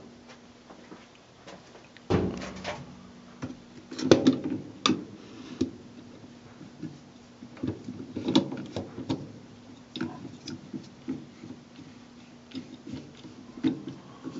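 Plastic parts of a top-loading washer's agitator being handled and fitted back together, with its new nylon agitator dogs: a string of irregular clicks and knocks, the loudest about 2, 4 and 8 seconds in.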